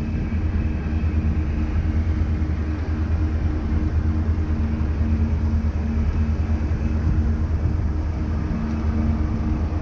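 Cruise boat's engines running steadily: a continuous low drone with a constant hum over it and an even background hiss.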